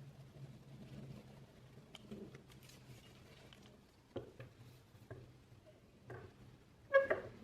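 Small handling sounds: scattered light taps and clicks, then a louder knock near the end, over a faint steady low hum.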